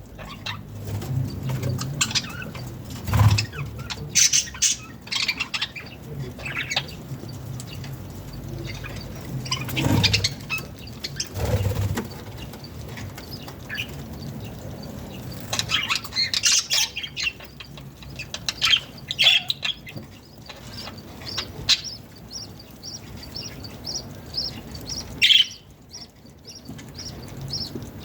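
Pet budgerigars chirping and squawking in irregular chatter, with a few dull thumps and, near the end, a quick even run of short high chirps at about three a second.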